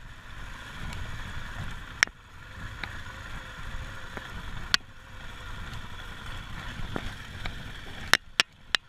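Motorcycle riding along a dirt track: a steady rumble of engine and tyres on gravel, with sharp knocks now and then and several in quick succession near the end.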